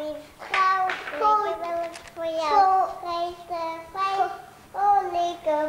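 A young child singing a simple song: short held notes, phrase after phrase, with brief breaths between them.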